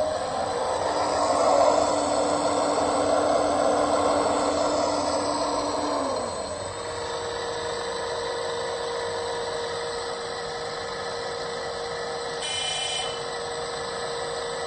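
Simulated excavator diesel engine from a Servonaut SMB sound module, playing through the 1/12-scale CAT 336GC model's speaker. It runs louder and higher for about six seconds, then drops in pitch and settles into a steady idle hum. A short high beep sounds near the end.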